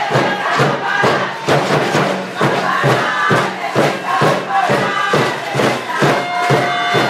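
Spectators at a youth American football game chanting and shouting over a fast, steady drumbeat; a long held horn note comes in about six seconds in.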